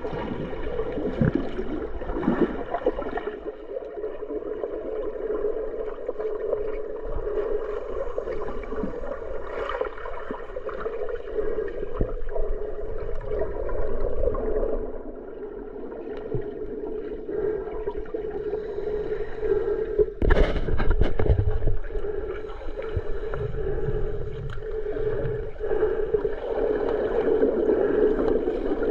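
Water gurgling and sloshing close to the microphone, with a steady hum beneath, and a louder splash-like burst about twenty seconds in.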